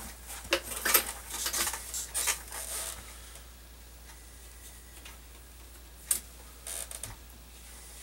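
Handling noises at a workbench: a cluster of light clicks and clatter over the first few seconds as a pair of tin snips is picked up, then quiet, with a few sharp clicks about six and seven seconds in.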